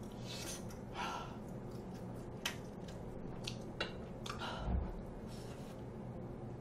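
Close-up quiet eating sounds: soft breaths and chewing, a few light clicks of a utensil, and a soft knock a little over two-thirds of the way through.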